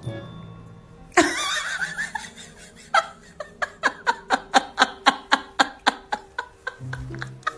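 A person laughing: a loud burst about a second in, then a long run of rhythmic laughs, about four a second.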